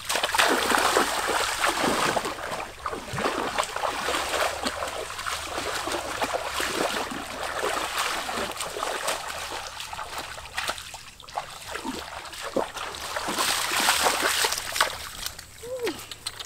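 Water splashing and sloshing in irregular bursts, as if something is moving through shallow water. It is louder at the start and again about three-quarters of the way through.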